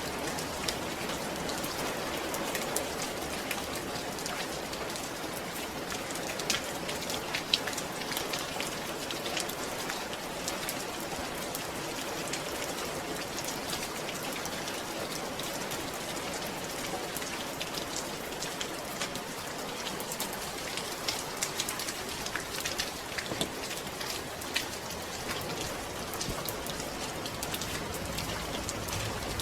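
Steady rain falling on a surface, an even hiss with many individual drops ticking.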